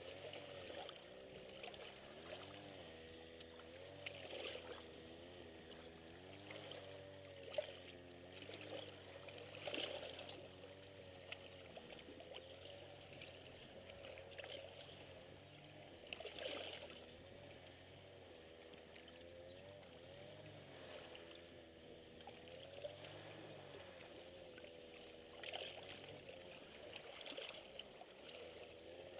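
Small sea waves lapping and splashing against shore rocks, swelling now and then. Under them runs a faint low drone that slowly wavers in pitch.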